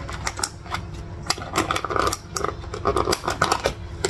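Sharp clicks and taps with bursts of rustling: a plastic soup container and spoon being handled at the table.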